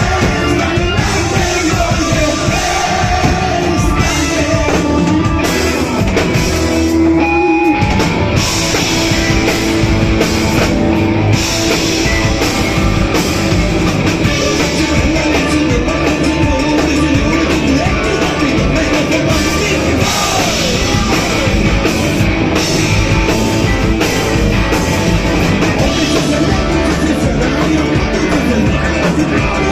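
Live rock band playing loudly, with a drum kit and a lead voice singing over it.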